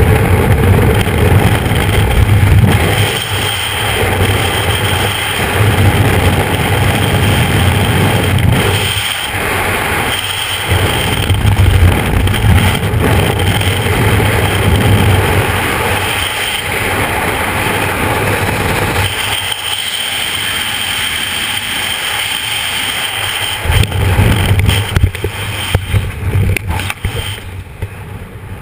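Loud freefall wind roaring and buffeting over a GoPro's microphone in a skydive, with a deep rumble that swells and eases. Near the end it falls away as the parachute opens and the speed drops.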